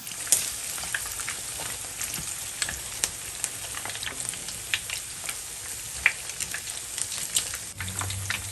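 Chicken wings deep-frying in hot oil: a steady sizzle with scattered sharp pops and crackles.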